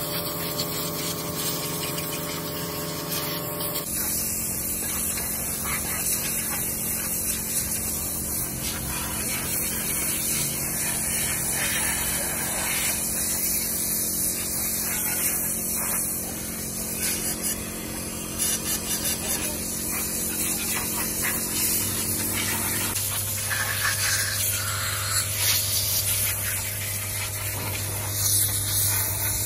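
Hose-fed spray gun with a cup hissing steadily as it blasts cleaning liquid over a diesel engine crankshaft, with a steady machine hum underneath. The hiss changes character about four seconds in and again near 23 seconds.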